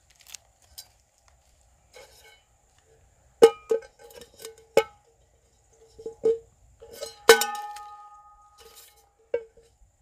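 A metal camp pot clanking about half a dozen times as it is handled and set down on top of the bundled wooden stakes, each knock ringing briefly. The loudest clank, about seven seconds in, rings on for over a second.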